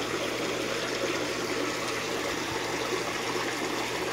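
Steady running, trickling water at a garden fish pond, with a faint low hum underneath.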